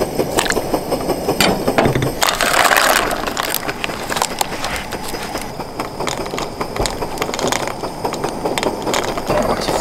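Radish cubes and egg cockles being dropped and tipped into a steel pot of simmering broth: light knocks and clatter, with a short louder splashing rush about two and a half seconds in, over a steady low rumble.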